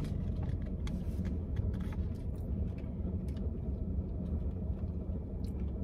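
Steady low rumble of a car idling, heard from inside the cabin, with faint scattered clicks over it.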